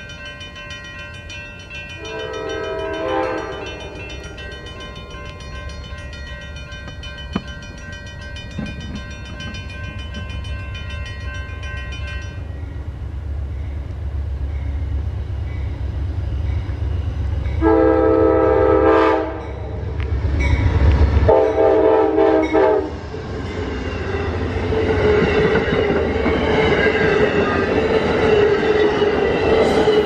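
Amtrak train's locomotive horn sounding as the train approaches: a short blast about two seconds in, then two longer, louder blasts about 18 and 20 seconds in, over a building diesel rumble. The train then passes close by with loud wheel and rail noise. A grade-crossing bell rings steadily until about twelve seconds in.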